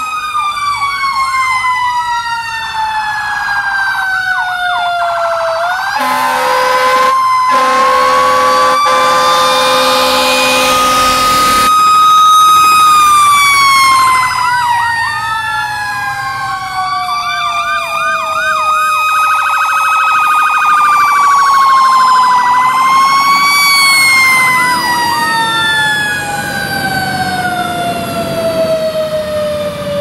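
Fire trucks going by with sirens sounding: a siren winding up and then falling slowly in long wails, broken at times by short rapid yelps. An air horn blast is held for about six seconds, starting about six seconds in, with one brief break.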